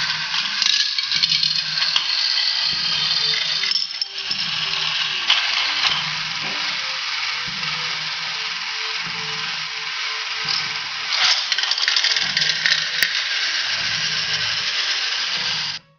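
Battery-powered toy Thomas locomotive running on plastic playset track: a steady electric-motor whir with rattling plastic wheels and a low clatter about once a second. The sound cuts off abruptly near the end.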